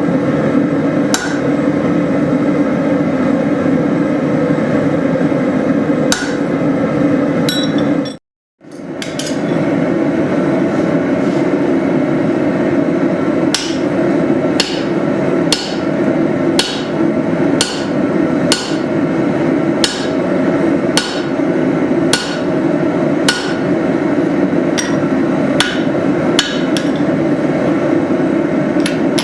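Hand hammer striking a steel drift through a hot leaf-spring hatchet blank on the anvil, punching out the eye: a few spaced blows early, then steady blows about one a second after a brief break about 8 seconds in. A steady forge roar runs underneath.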